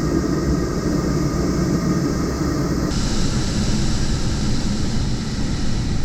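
Steady rushing airflow noise over the MDM-1 Fox sailplane's cockpit in flight, with no engine; the hiss turns abruptly brighter about three seconds in.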